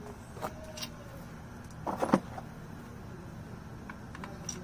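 Light metallic clicks and one louder knock about two seconds in, as lug nuts are pushed by hand into the deep recessed lug holes of an aftermarket wheel, over a low steady hum.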